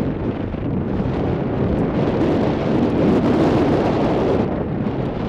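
Wind buffeting the camera microphone: a steady low rumble that swells louder and brighter for a couple of seconds in the middle.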